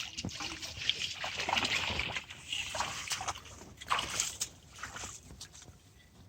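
Water splashing and sloshing in irregular bursts, dying away about five seconds in.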